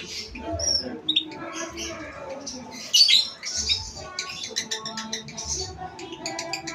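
Lovebird ngekek: a long run of rapid, shrill chattering and squawks, loudest about three seconds in.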